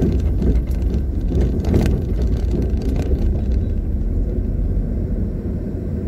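Steady low rumble of engine and road noise heard inside a moving car's cabin, with a couple of faint knocks about two and three seconds in.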